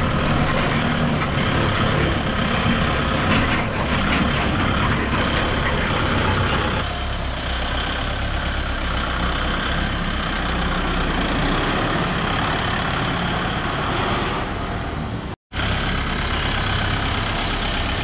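Kubota MU5501 tractor's four-cylinder diesel engine running steadily as the tractor drives. It is heard close from on board at first, then from outside from about seven seconds in. The sound drops out for an instant near the end.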